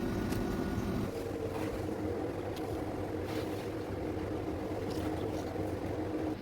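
A steady, low mechanical hum with a few held tones, shifting slightly about a second in, with faint light clicks over it.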